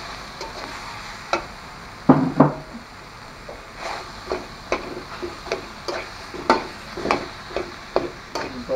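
Steel spatula scraping and knocking against a metal karahi as mashed potato is broken up and stirred into frying onions and spices, with a light sizzle underneath. Two heavier knocks come a little after two seconds in, then short scraping strokes about twice a second.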